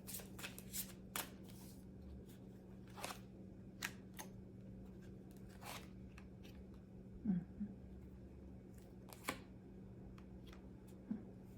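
Fairy oracle cards being shuffled and handled: irregular short riffles, slides and taps, over a faint steady low hum.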